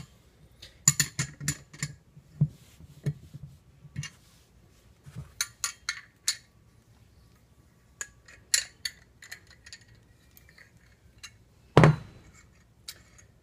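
Irregular metallic clinks and taps of a 13 mm wrench working a lock nut off the top of a filter element, with a louder knock about twelve seconds in.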